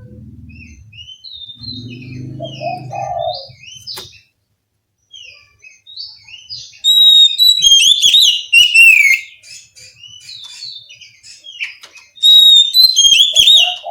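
Oriental magpie-robin (kacer) singing a varied song of quick chirps and whistled notes, with two loud bursts of rapid, sweeping phrases, one in the middle and one near the end. A low sound sits beneath the song in the first few seconds.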